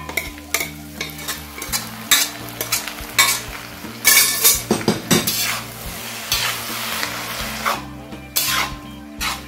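Soya chunks and onions frying and sizzling in a hot iron kadai on high flame, with a metal spatula repeatedly scraping and clanking against the pan as the chunks are tipped in and stirred.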